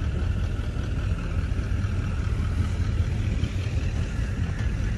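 Pickup truck engine idling, a steady low rumble.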